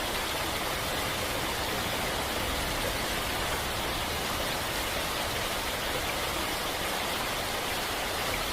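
Steady, even rush of water at a constant level, with no breaks or changes, cutting in and out abruptly.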